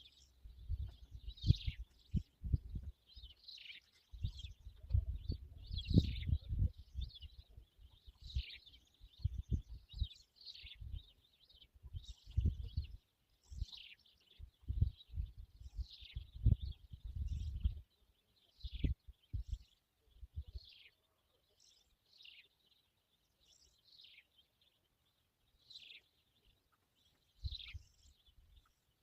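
A songbird calling over and over, a short falling note about once a second. Underneath, a gusty low rumble comes and goes for the first two-thirds and then mostly dies away.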